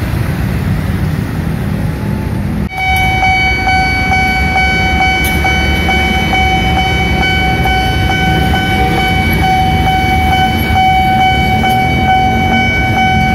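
Railway level-crossing warning alarm switching on about three seconds in and sounding as one steady, unbroken high electronic tone, the signal that a train is approaching, over the noise of passing motorcycles and cars.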